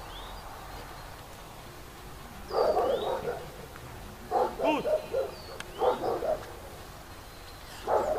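A dog barking in four short bouts spaced a second or two apart, starting a couple of seconds in.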